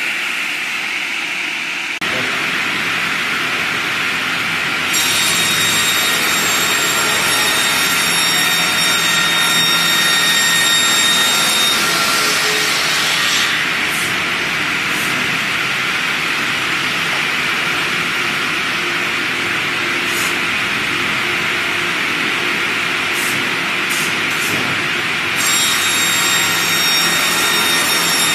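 Large circular saw blade of a log sliding-table saw cutting through a log: a loud, steady whine with the hiss of sawing. The sound changes abruptly a few times.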